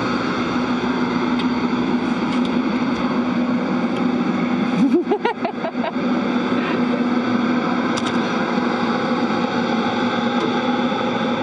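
Steady machinery hum of the International Space Station's ventilation fans and equipment, with a constant low tone. About five seconds in come a brief voice sound and a few light clicks.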